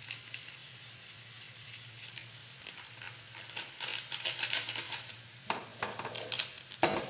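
Chopped vegetables sizzling in an aluminium pan. From about halfway through there are scattered scrapes and knocks in the pan, with the loudest near the end.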